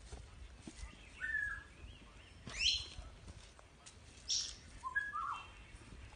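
A handful of short, high-pitched chirps and squeaks, scattered about a second apart, one a quick upward sweep and others falling in pitch.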